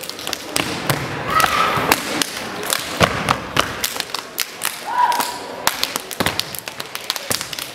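Step team stepping: a fast, uneven run of sharp foot stomps, hand claps and body slaps, with a couple of short shouts in between.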